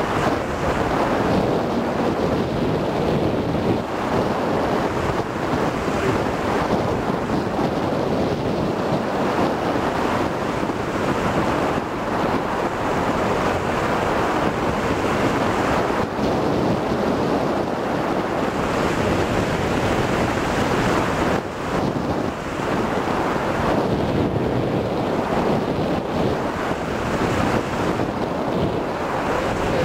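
Wind rushing over the microphone of a camcorder taped to a hang glider's control bar in flight: a steady loud roar of airflow that swells and eases a little.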